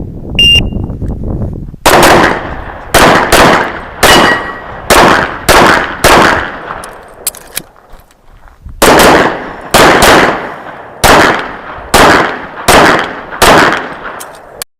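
A shot timer's start beep sounds about half a second in, then a handgun fires a fast string of shots about half a second apart. The shots stop for about two seconds near the middle, then a second rapid string runs until near the end.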